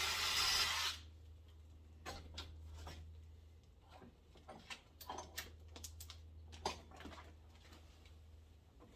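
A loud, steady rushing noise cuts off suddenly about a second in. Then come scattered light clicks and knocks, like tools or parts being handled, over a low steady hum.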